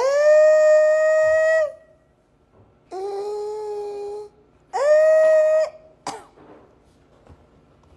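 A woman's voice holding long wordless notes, alternating between a higher and a lower pitch: high, low, high, each held steady for a second or more. A short sliding vocal sound follows about six seconds in.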